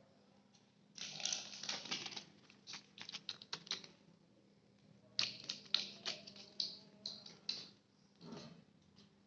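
A kitten scratching and clattering at something: two runs of rapid, irregular clicking scratches, starting about a second in and again about five seconds in, with a short scratch near the end.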